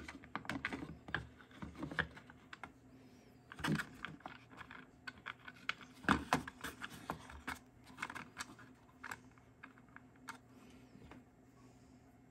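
Irregular light clicks and taps of hard 3D-printed plastic parts being handled and fitted together on a wooden bench: an aligning tool seated over the chuck's gears and its screws set in place. Two louder knocks come about four and six seconds in.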